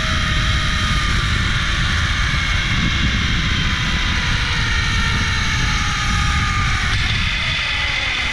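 Wind rushing over the microphone during a fast zipline ride, with the trolley's pulleys whining along the steel cable, the whine slowly dropping in pitch.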